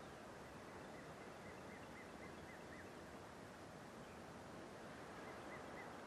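Faint turkey yelps: a quick run of about six short notes, then three more near the end, over a steady hiss of wind.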